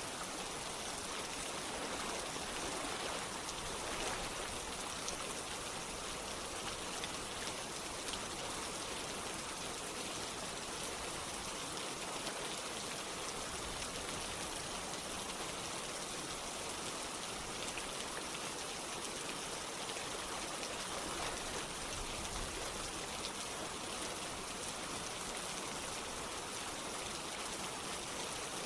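Steady rain falling together with running water from a stream or water wall, a constant even hiss with faint scattered drops.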